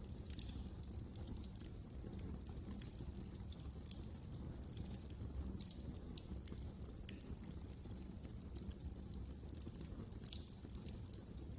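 Wood fire crackling in a fireplace: many sharp, irregular crackles and pops over a steady low rumble.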